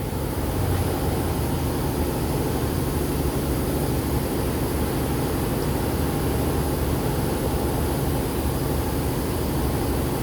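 Steady rushing, rumbling noise that holds at one level throughout, with no distinct knocks or tones.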